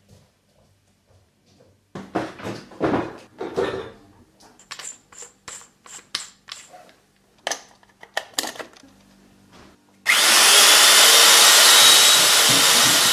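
Scattered clicks and knocks, then about ten seconds in an electric drill starts suddenly and runs loud and steady, boring into a refrigerator.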